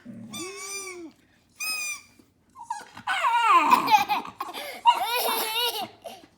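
Small dog making a run of high-pitched whining, squealing calls that bend up and down in pitch. Short separate calls come first, then a louder, more continuous stretch of squealing from about three seconds in.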